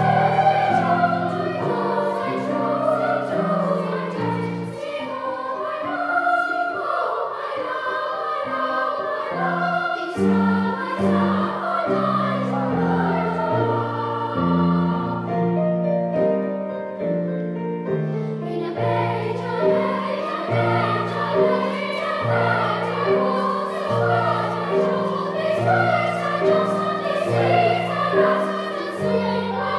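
Children's choir singing a Christmas carol with a held, accompanying bass line; the music thins out briefly about halfway through before the full sound returns.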